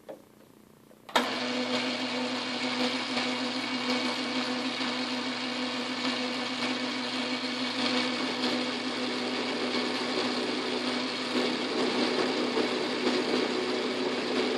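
Metal lathe starting up about a second in, then running steadily with its four-jaw chuck spinning: a constant motor hum with a steady whine over it.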